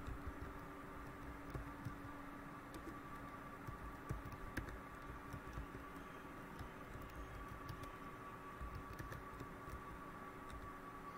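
Faint computer keyboard typing, scattered key clicks over a steady background hum.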